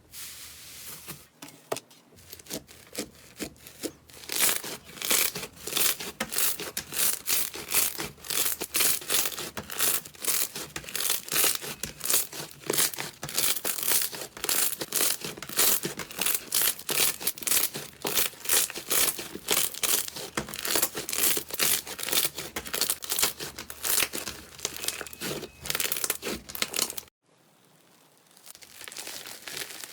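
Slime being squeezed and worked by hand, giving a dense, fast crackle of clicks and pops. It cuts off suddenly near the end, and a fainter crackling starts again just after.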